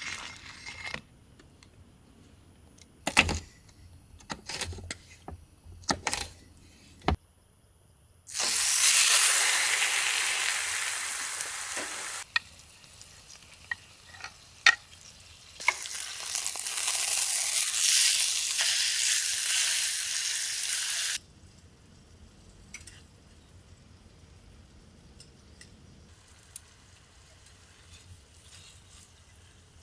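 Food sizzling in a hot pan, in two loud spells of several seconds each that start and stop abruptly, with scattered clicks and knocks of handling before them.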